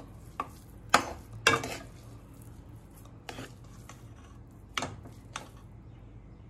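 Steel spoon stirring and scraping thick semolina halwa in a metal kadai, with about six sharp clinks of spoon on pan spread through the stirring, the loudest about a second and a second and a half in.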